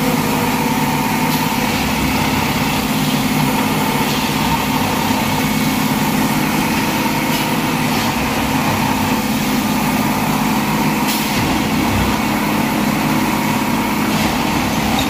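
CSM track tamping machine working: a steady engine and hydraulic drone as its vibrating tamping tines pack ballast under the sleepers, with a few brief sharper noises from the machinery.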